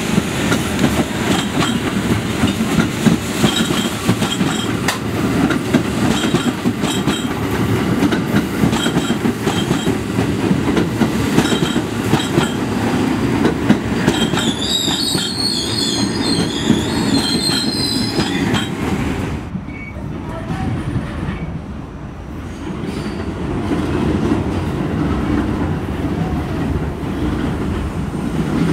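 R46 subway train pulling into the station past the platform, its wheels rumbling and clattering over the rail joints, with a high, wavering squeal in the middle. After a cut, a quieter rumble builds as a train runs, heard from inside a car.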